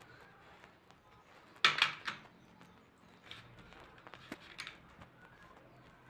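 Coloured pencil scratching on paper in short strokes: a quick cluster of three loud strokes a little under two seconds in, then a few fainter strokes and a light tap.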